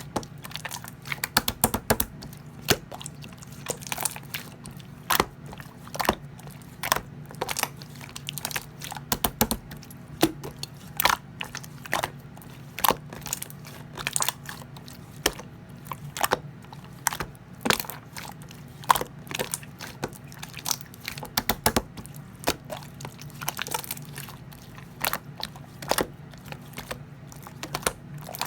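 Blue clear slime being squeezed and pressed by hand: a run of short, sharp clicking and popping sounds at irregular intervals, several a second, as trapped air bubbles burst.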